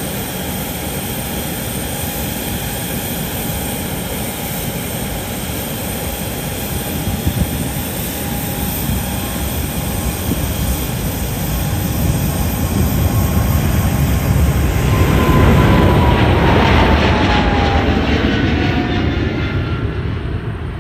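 Boeing 777-300ER's two GE90-115B turbofans at takeoff thrust through the takeoff roll and lift-off. The jet noise builds as the airliner passes, with a whine that falls in pitch as it goes by, then eases as it climbs away.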